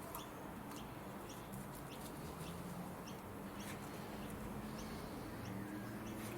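Faint bird calls: low pitched notes with short high chirps repeating about once a second.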